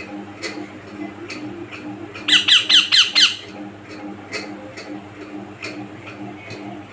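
Young green parakeet squawking: a quick burst of about six harsh calls, each falling in pitch, about two seconds in and lasting about a second. Faint ticking sounds in the background.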